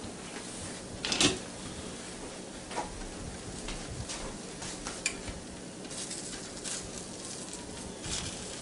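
An egg frying in a Copper Chef square pan with a ceramic nonstick coating, sizzling steadily with small crackles and pops. There is one sharp clack about a second in. Near the end a spatula scrapes and taps against the pan as it cuts into the egg white.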